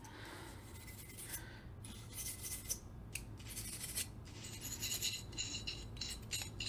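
Bronze-bristle cleaning brush scrubbing the rails of a steel pistol slide: faint, quick, scratchy back-and-forth strokes that grow busier about halfway through.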